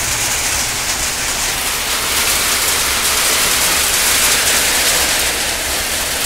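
Heavy rain falling steadily onto flooded, puddled ground, an even, unbroken hiss of downpour.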